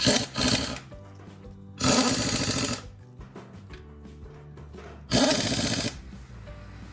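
Pneumatic impact wrench running on a car's wheel nuts in short bursts: two quick runs at the start, a run of about a second two seconds in, and another just after five seconds.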